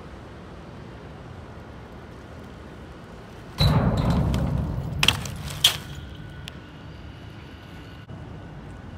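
BMX bike hitting a concrete wedge: a sudden loud rush of tyres on concrete about three and a half seconds in, fading over a second or so, then two sharp knocks as the wheels come down. Steady outdoor background noise throughout.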